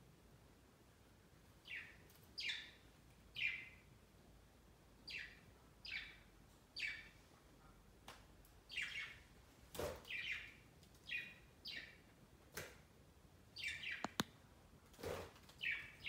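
Pet budgerigars chirping: a series of about fifteen short calls, each falling in pitch, coming every half second to a second. A few sharp clicks are mixed in.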